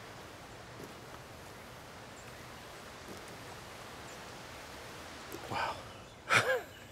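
A steady, faint outdoor hiss. Near the end come two short, loud cries with bending pitch, the second one the loudest.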